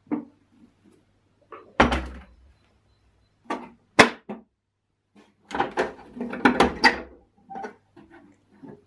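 Rusty steel tool case being handled on a wooden bench: a heavy thump as it is set down, sharp metal clicks as its latches are worked, then a run of rattling metal clanks as the lid is moved, and a few lighter taps near the end.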